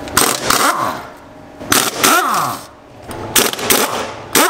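Cordless impact wrench hammering in four short bursts, its motor whining down after each, as it undoes car wheel bolts.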